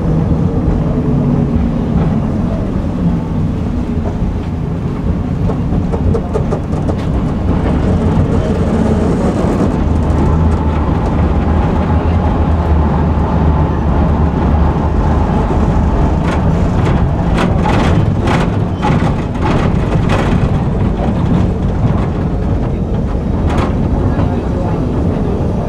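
Tram running along the track: a steady low rumble of wheels and motor, with a run of sharp clacks from the wheels on the rails about two-thirds of the way in and one more near the end.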